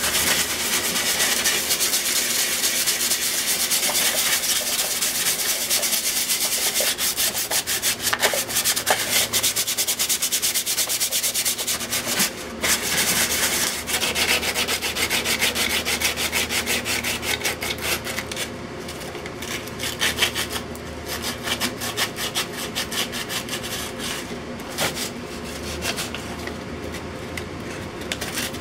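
Rust being scrubbed by hand off the rusted top of a metal electrical box: rapid back-and-forth abrasive strokes rasping on the corroded metal, a little quieter in the second half.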